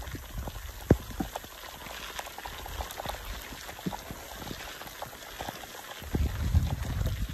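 Steady rain falling, with scattered sharp taps close by, the loudest about a second in. A low rumble swells in near the end.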